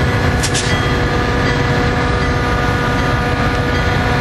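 Metra commuter train rolling slowly along a station platform: a steady low rumble with a steady hum of several tones, and two short sharp clicks about half a second in.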